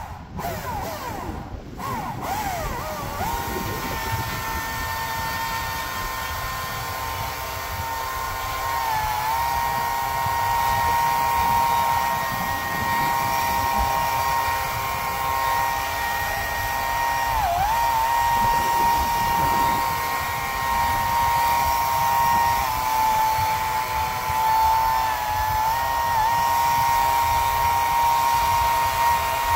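A motor-driven machine spinning up over the first few seconds, then running with a steady high whine. The pitch dips briefly about four times, as when it takes a load.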